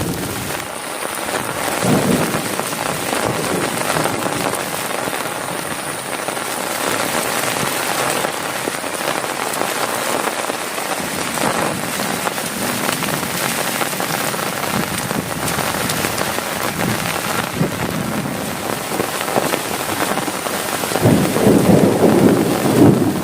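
Heavy rain pouring steadily on a tent, with a low rumble of thunder swelling near the end.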